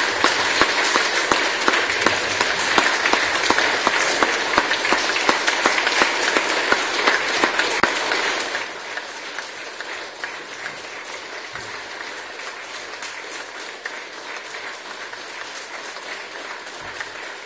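Audience applauding, a dense steady clapping of many hands. About eight seconds in it drops to quieter, thinner clapping that goes on to the end.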